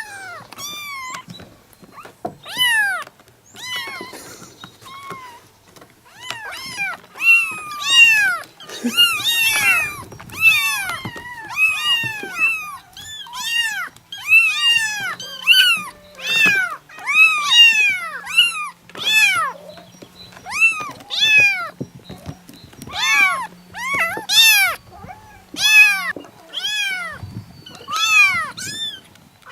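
Several kittens meowing at once, many short, high-pitched, overlapping calls, thickest and loudest from about seven seconds in. A faint low hum sits underneath through the middle.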